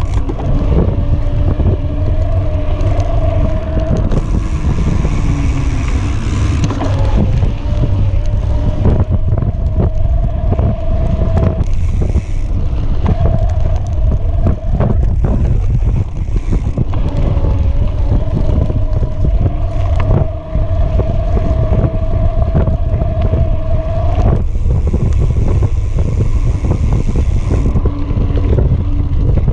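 Wind buffeting the action-camera microphone as a heavy rumble, with an electric mountain bike's motor whining steadily under pedal assist and cutting out several times. Knobby tyres and the bike rattle with short clicks over the dirt trail.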